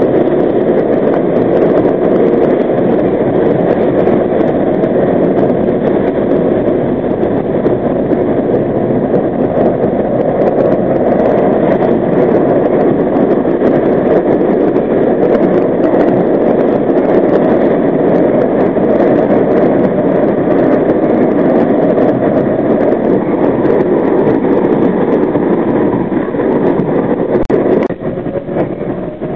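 R32 subway train running through a tunnel: a loud, steady rumble of wheels on rail and running gear. Near the end there is a single click and the noise drops a little.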